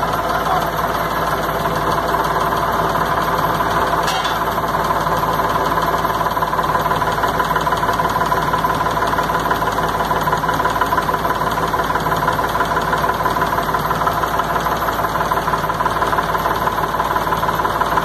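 Truck engine running steadily while driving a piston water pump, with a steady high whine over the engine noise.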